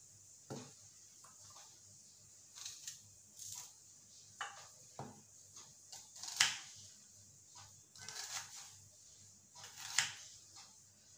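Kitchen knife slicing through a halved red onion against a wooden chopping board: scattered light knocks and crunches at an uneven pace. The sharpest comes about six and a half seconds in, and another near ten seconds.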